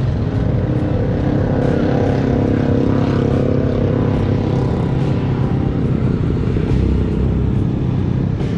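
A motor vehicle engine running steadily, its hum clearest in the first half, over a constant low rumble.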